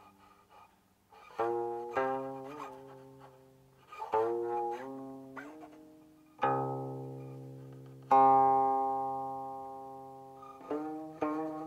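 Guqin solo: spaced-out plucked notes and chords that ring and fade, the left hand bending some of them in pitch. A loud note about eight seconds in rings out slowly before quicker notes resume near the end.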